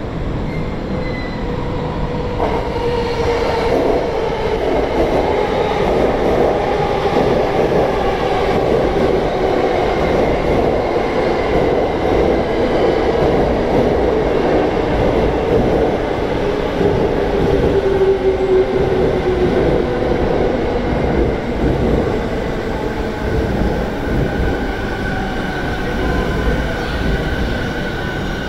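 Yokosuka Line E217 series electric train pulling into a station platform and braking. Its wheels rumble on the rails under a whine that slowly falls in pitch as it slows.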